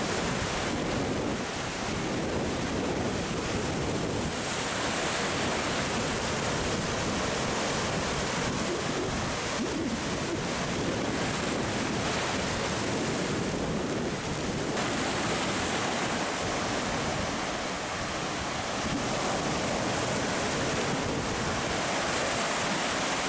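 Sea surf breaking and washing over shoreline rocks: a continuous, steady rush of water.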